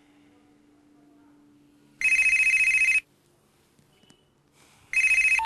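A phone ringing twice, each ring a fast warbling trill. The first ring lasts about a second; the second is cut short after about half a second.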